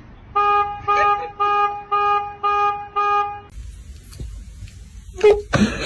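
A horn-like tone honking six times in an even rhythm, each honk about half a second long at the same pitch. After a short gap, a brief rising sound and a louder noisy burst come near the end.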